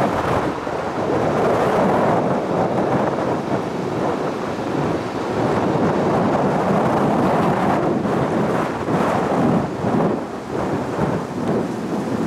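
Wind and road noise from a car driving on a wet road: an unbroken rushing rumble that swells and dips.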